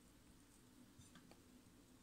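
Near silence: faint room tone, with a few faint clicks about a second in from a spatula scooping chocolate spread out of a tin.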